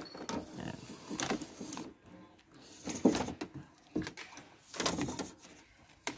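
Handling sounds of hands working a wire through a rubber grommet on a car's tailgate: irregular rubbing and rustling with a few sharp clicks and knocks.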